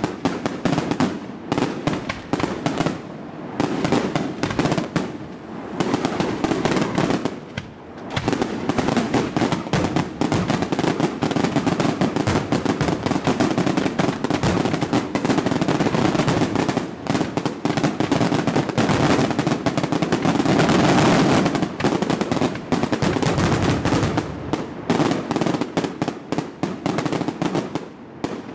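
Aerial fireworks going off in a rapid, near-continuous barrage of bangs and crackles. It eases a few seconds in, then builds to a dense volley that is loudest about two-thirds of the way through and stops just before the end.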